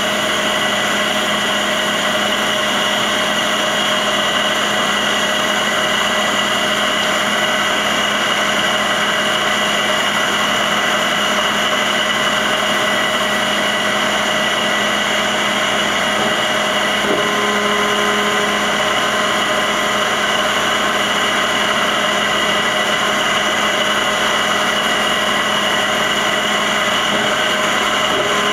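Traub TNS-26-DGY CNC turning center running: a steady mechanical hum with several high, steady whining tones. A little over halfway through, a further lower whine starts and carries on, as another drive spins up.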